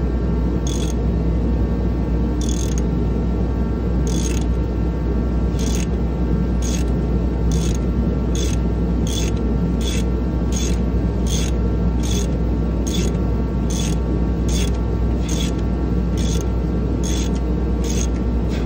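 Ratchet handle with a 3/4-inch socket cranking the forcing screw of a harmonic balancer puller to draw the pulley off a Ford 5.4L V8, its pawl giving one short bright click per stroke. The clicks come slowly at first, then a little faster than once a second, over a loud steady drone from a heater.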